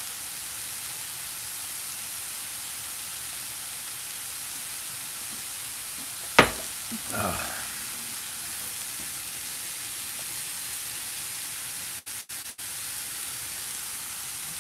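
Steady sizzle of Amanita villosa mushrooms dry-frying in nonstick pans with no oil or butter, their water cooking out as steam. A single sharp knock about six seconds in.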